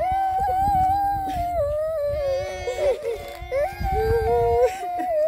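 Young children crying loudly, two voices wailing at once in long, wavering cries.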